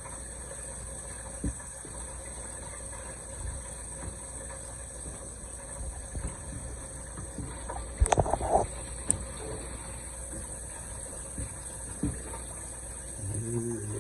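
A wooden spoon stirring and knocking in a pot of simmering okra, shrimp and sausage, over a steady low hum; a few scattered knocks, with the loudest cluster about eight seconds in.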